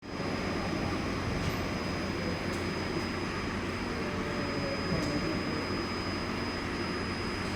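Steady machinery hum and rumble with a thin, steady high whine and a few faint clicks.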